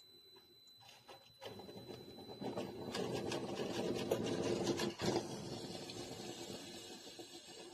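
Small single-serve coffee maker running a cycle with a rattling, sputtering sound. It starts after about a second and a half, swells for a few seconds and then fades.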